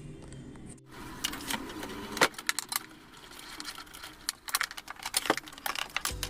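Irregular metallic clicks and clinks of screws and a screwdriver as the Onkyo TX-NR696 AV receiver's sheet-metal cover is opened.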